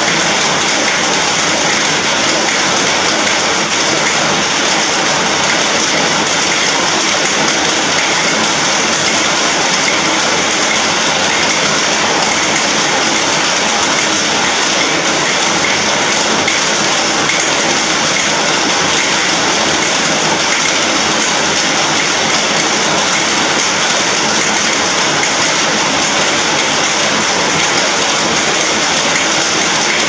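Heavy rain falling on an iron roof: a loud, even hiss that does not let up.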